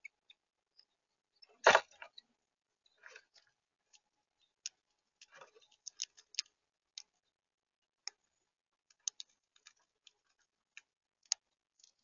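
Northern cardinals feeding at a seed feeder: scattered sharp clicks of seeds being cracked and beaks pecking on the tray, with one loud thump about two seconds in and softer knocks a little later.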